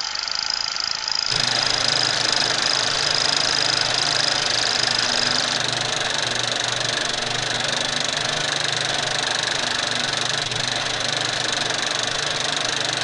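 A steady mechanical running noise like an engine idling, with a constant hiss over it. A high thin tone sounds in the first half and then dies away.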